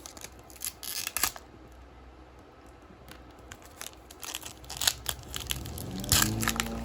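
Hockey card pack wrapper being torn open and handled, in scattered crinkles and crackles, with a quieter lull in the middle. A steady low hum comes in near the end.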